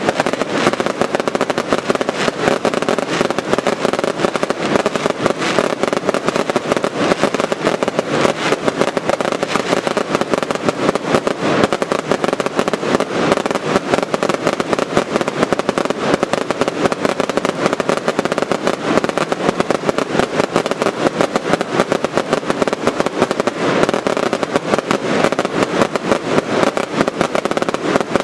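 Daylight fireworks display: a continuous, rapid barrage of aerial bursts and crackling, many bangs a second with no pause.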